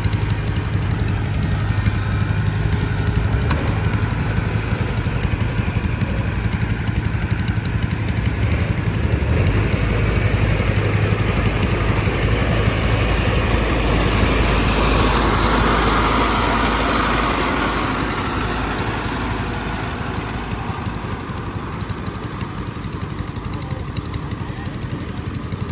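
Diesel engine of a rice harvesting machine running steadily. It grows louder through the middle and eases off toward the end.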